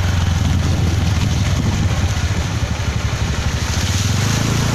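A motor vehicle engine running steadily, heard from on board along with road noise, its low note shifting and growing stronger near the end.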